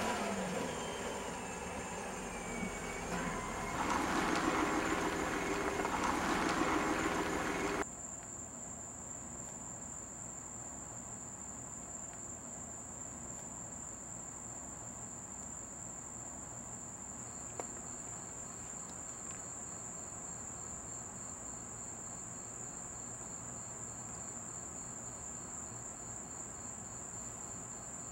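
For about the first eight seconds a car engine runs, then it cuts off abruptly. After that, crickets chirr steadily in a high, even tone through the rest of the night.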